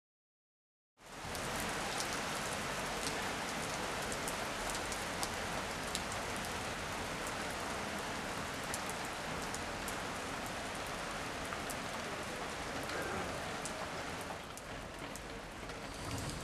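Steady rain falling on a wet street and pavement, with many sharp clicks of drops striking close by; it starts suddenly about a second in and eases a little near the end.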